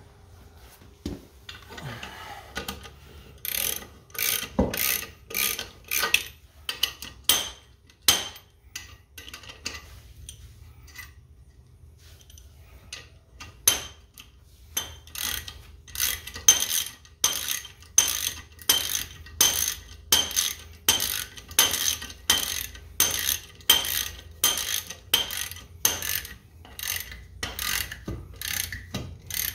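Hand ratchet wrench clicking in repeated strokes, about two a second, as the nuts holding a cast-iron wheel weight to a tractor rim are run down. The clicking stops for a few seconds near the middle, then resumes.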